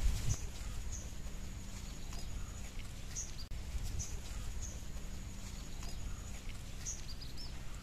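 Faint, short, high chirps from small birds every second or two, over a steady low background hum.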